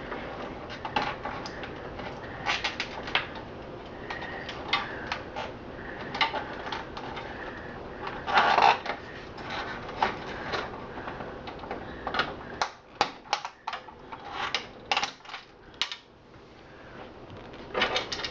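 Irregular clicks, ticks and light rattles of plastic cable connectors and wire ties being worked loose inside a computer case. A louder clatter comes about halfway through, and a quick run of clicks follows.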